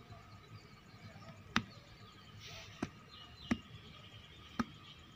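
Four short, sharp clicks at uneven spacing, roughly a second apart, over a faint steady background.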